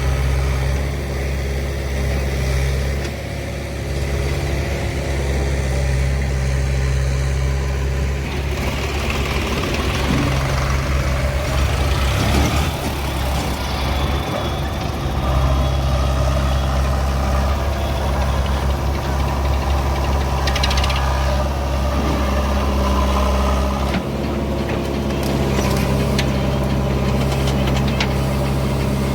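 Heavy diesel engine running steadily, a deep, even drone.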